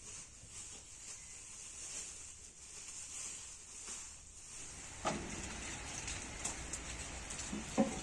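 Faint steady pattering of rain. About five seconds in, a louder frying sizzle starts suddenly: cotlet patties going into hot oil. A short knock comes near the end.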